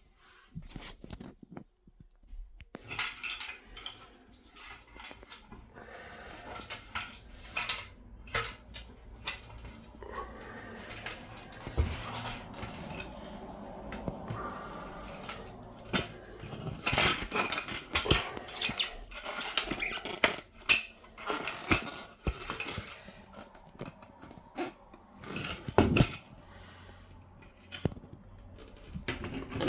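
Irregular clicks, knocks and clatter of hard fan parts being handled, with brief stretches of steadier rustle between them.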